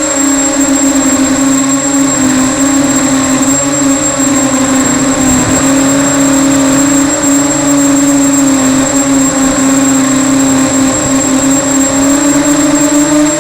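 Small multirotor drone's electric motors and propellers buzzing at a steady pitch, with a brief dip about five seconds in.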